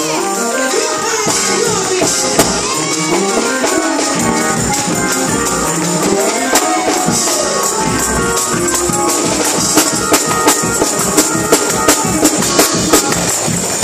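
Church praise music: a woman's voice through the microphone over a shaking tambourine, with sharp beats about three a second in the last few seconds.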